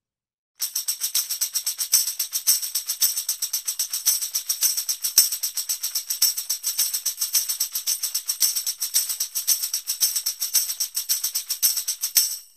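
Tambourine shaken in a fast, even rhythm, its metal jingles clashing on every stroke. It starts about half a second in and stops just before the end.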